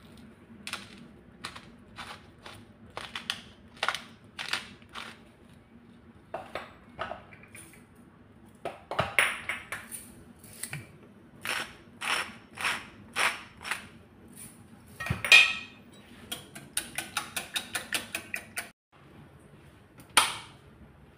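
Wire whisk beating eggs in a ceramic bowl, its wires clicking against the bowl in separate strokes that quicken into a fast run of clicks. A single knock follows near the end.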